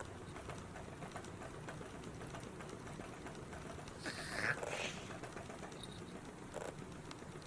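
Cat toy rattling steadily, with a louder rustling scuffle about four seconds in and a brief one near the end.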